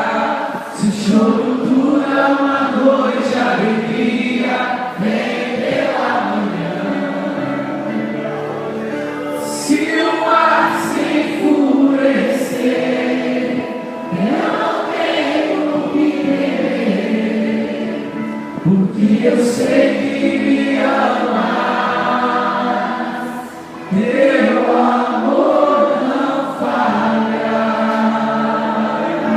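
A group of voices singing a Christian worship song with instrumental accompaniment, with a short drop in loudness a little before the end.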